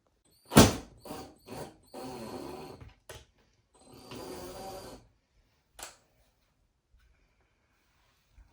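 A sharp knock, a couple of lighter taps, then a cordless drill or screwdriver running in two short bursts of about a second each, driving screws for a curtain-rod bracket into the wall.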